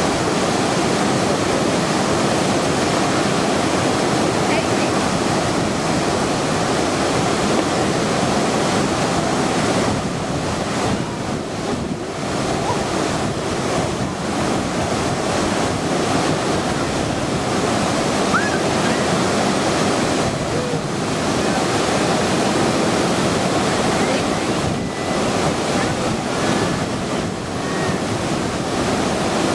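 Lower Bassi Falls: a waterfall pouring and splashing in a steady, loud rush of falling water, dipping slightly in level a few times.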